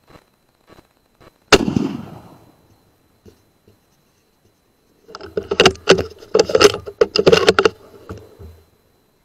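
A single loud, sharp rifle shot about a second and a half in, dying away over about a second. A few seconds later comes a dense clatter of rapid knocks and rattles lasting about three seconds.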